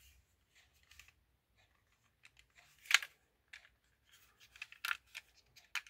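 Hard plastic toy parts of a 1993 Megazord Sabretooth Tiger being handled and fitted together by hand: scattered small clicks and taps, one sharper click about three seconds in, and a quick run of small clicks near the end.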